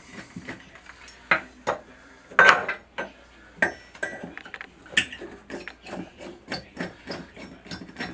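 Irregular clicks and clinks of a screwdriver working the handle off a Delta two-handle bathroom faucet, with louder knocks about two and a half seconds in and again around five seconds.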